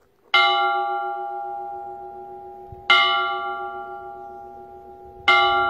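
A bell struck three times, about two and a half seconds apart, each stroke ringing on and slowly fading.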